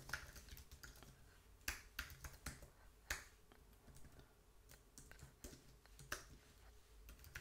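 Faint, scattered keystrokes on a computer keyboard, irregular clicks as a line of code is typed.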